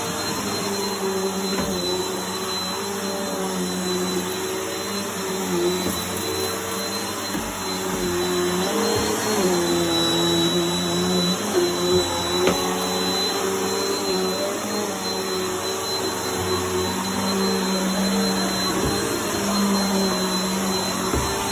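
Bissell Helix vacuum cleaner running steadily, its motor humming with a high whine over a dense rush of suction, while crunchy debris crackles up the nozzle. The motor pitch dips briefly a little under halfway through, then recovers.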